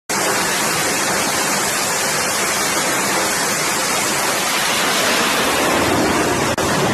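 Loud, steady rushing noise with no distinct tone, with a momentary dropout about six and a half seconds in.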